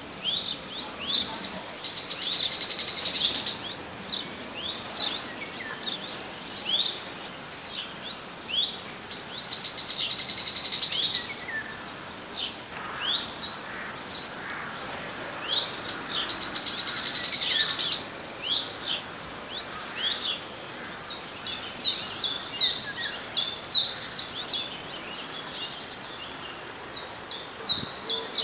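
Small songbirds chirping and singing: many short falling chirps, a buzzy trill about a second long that comes back three times, and a quick run of sharp repeated chirps in the last quarter.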